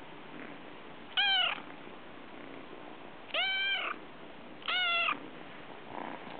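Munchkin kitten meowing three times, short calls a second or two apart. The meows are its way of asking for attention and petting.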